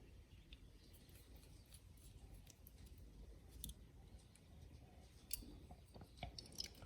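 Near silence: faint low room hum with a few faint, short clicks of small objects being handled, mostly in the second half.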